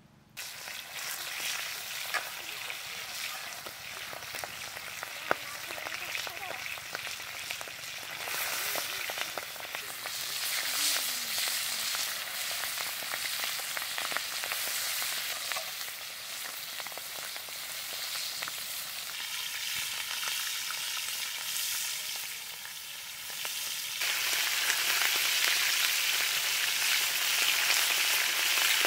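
Pangas fish pieces frying in hot oil in a large iron kadai: a dense, steady sizzle that starts suddenly about half a second in, with a few sharp clinks of the metal spatula against the pan as the pieces are turned.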